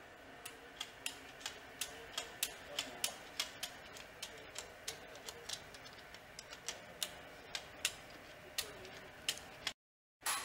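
Sharp metallic clicks of hand tools working on the truck's engine, coming irregularly at about three a second over a faint background.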